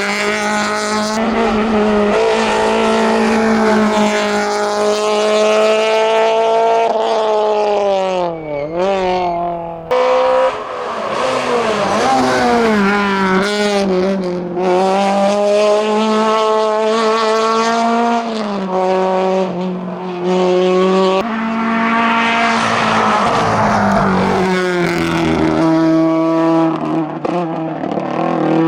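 Citroën Saxo VTS competition car's 1.6 sixteen-valve four-cylinder engine driven hard, its pitch climbing and dropping with throttle and gear changes. About twenty seconds in, a Volkswagen Golf GTI Mk2's four-cylinder engine takes over, also run flat out.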